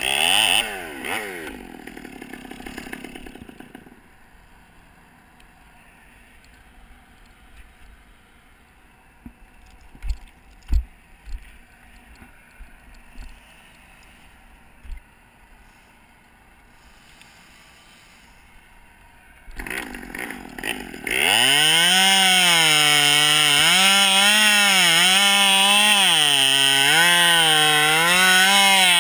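Chainsaw revving, then dying away within the first few seconds. A long quieter stretch follows with a few sharp knocks. Two-thirds of the way through it starts up again in short bursts and runs at high speed, its pitch repeatedly dipping and rising as it works.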